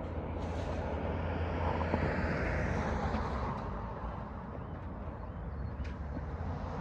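A passing vehicle over a steady low rumble of distant traffic, swelling to its loudest a couple of seconds in and fading away.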